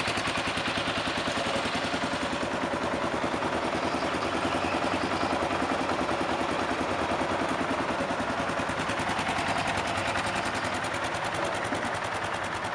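2008 Kawasaki KLR650's single-cylinder four-stroke engine idling steadily, a rapid, even beat of exhaust pulses.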